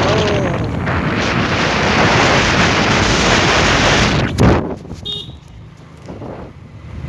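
Wind buffeting a phone's microphone in a loud, rough rush that stops abruptly after about four seconds with a sharp knock, leaving it much quieter.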